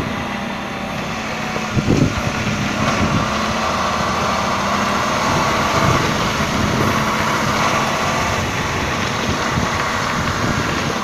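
A MAN fire engine's diesel running steadily at idle with a constant hum, plus a brief knock about two seconds in.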